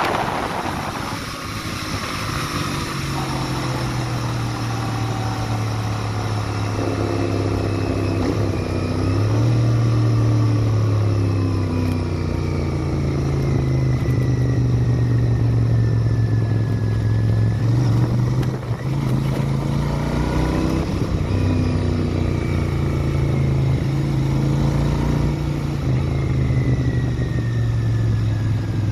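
Royal Enfield Interceptor 650's parallel-twin engine and exhaust running on the move, its low note rising and falling with the throttle and gear changes.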